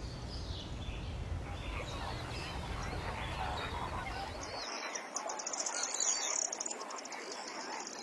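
Birds calling, a mix of different calls, with a rapid high trill from about halfway through. A low outdoor background rumble cuts off abruptly about halfway.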